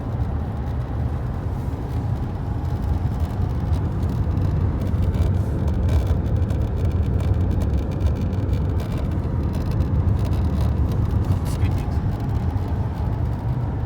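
Skoda Kodiaq dashboard creaking and ticking now and then over a steady low rumble of road and engine noise inside the cabin. The creak is a trim build-quality fault.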